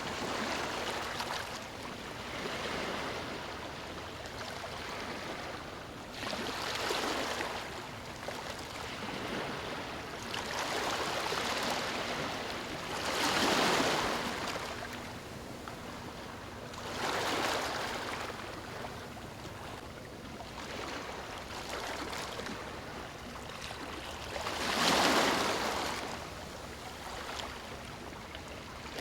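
Sea waves breaking and washing up on a beach: a swell of surf every few seconds, the loudest near the middle and again near the end.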